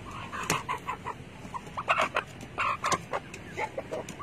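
Chicken clucking in a string of short, irregular calls, with a few sharp clicks among them.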